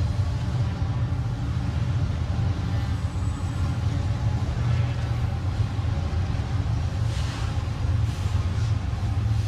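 Double-stack intermodal freight trains rolling over elevated steel bridges: a loud, steady low rumble of wheels and cars on the rails.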